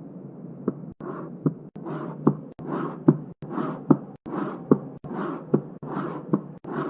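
Heartbeat with a murmur: a sharp click about every 0.8 seconds, and a rushing whoosh filling the gaps between the beats, broken by a few very brief dropouts.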